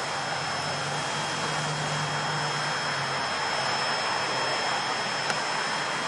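Vehicle engine and road noise: a steady rush with a low engine hum that fades away about three to four seconds in, and a single click about five seconds in.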